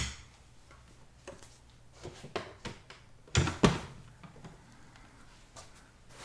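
Clunks and knocks of a wooden harmonium being picked up and moved about on a tiled floor: a sharp click at the start, scattered knocks, then two heavy thumps about three and a half seconds in.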